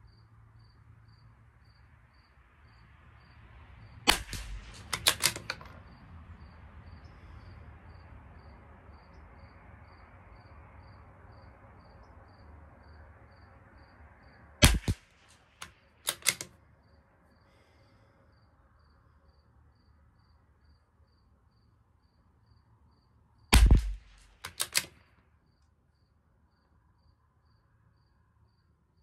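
Three shots from a .22 LR bolt-action rifle, about ten seconds apart, each followed by a few quick clicks of the bolt being worked to chamber the next round. A faint insect chirps steadily underneath.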